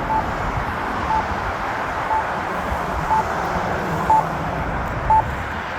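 Accessible pedestrian signal push button sounding its locator tone: a short high beep once a second, the tone that lets blind pedestrians find the button. Steady traffic noise runs underneath.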